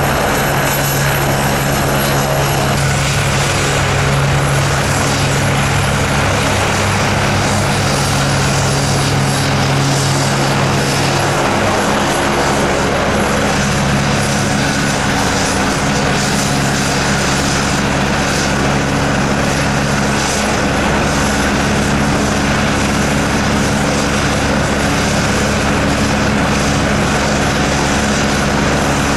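AgustaWestland AW109 twin-turbine helicopter running on the pad with its main rotor turning: a steady rotor thrum under a thin high turbine whine.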